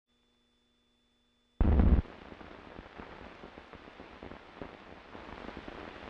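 A sudden loud low thump about one and a half seconds in, then a steady hiss with faint scattered crackle from an old field tape recording's soundtrack.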